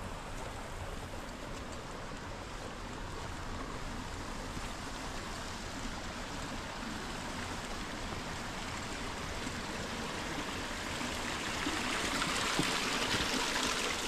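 Running stream water, a steady rushing that grows louder near the end.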